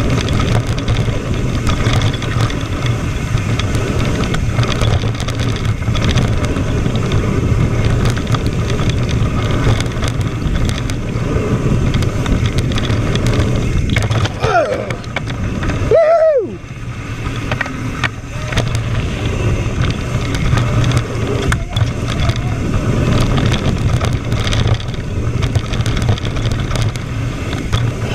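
Mountain bike descending a dirt trail, heard from a camera mounted on the rider: a steady rumble of wind buffeting the microphone and tyres running over dirt, with rattling. About fourteen seconds in, a voice calls out twice in short rising-and-falling shouts.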